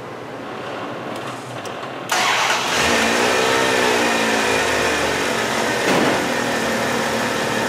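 Vehicle engine jump-started on a weak battery with a portable jump starter: it catches suddenly about two seconds in, its pitch rises and falls back once, then it runs steadily at idle.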